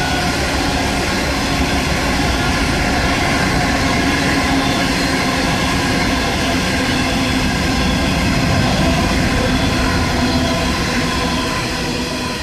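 Train passing close by: a steady rumble of wheels on the rails with several ringing tones over it, easing off near the end.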